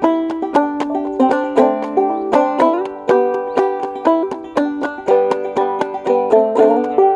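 Five-string banjo played clawhammer style in open G tuning: a steady run of bright plucked notes, each with a sharp attack that fades quickly.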